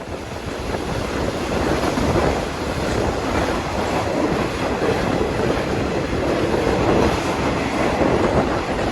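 Passenger train running along the track: a steady rolling noise of wheels on rails and the carriage, growing louder over the first couple of seconds and then holding even.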